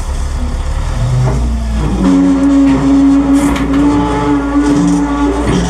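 Roll-off dumpster truck's diesel engine running and revving up in two steps, about a second in and again about two seconds in, with a steady mechanical whine over it for most of the rest.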